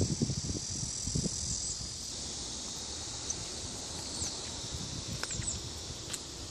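Insects shrilling steadily outdoors, with a few short bird chirps over them. A few low thumps come in the first second or so.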